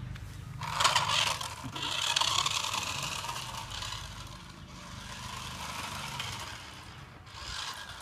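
Small toy remote-control car driving across a concrete floor: its little electric motor and gears whirring and its wheels scraping, in a burst about a second in and a longer one from about two seconds, then fading.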